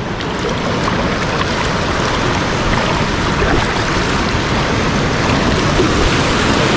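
Ocean surf breaking and washing through shallow water, a steady rushing hiss of foam.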